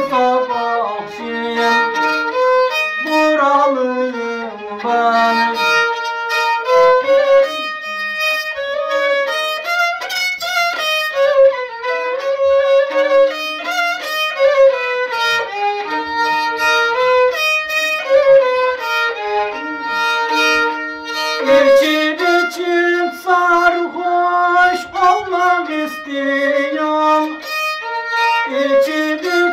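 Solo violin, bowed, playing a continuous melody with sliding, bending notes between steps.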